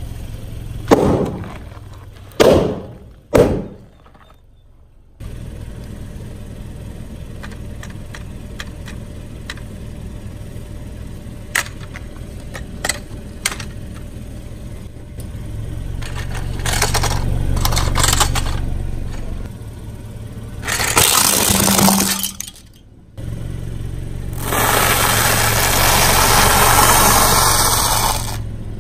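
A car tyre rolls over spiky rubber balls, which burst in three loud pops in quick succession. A low-speed car engine rumble follows, with scattered clicks and plastic cracking. Near the end comes a long, loud dry crunching as the tyre crushes a heap of dry noodles.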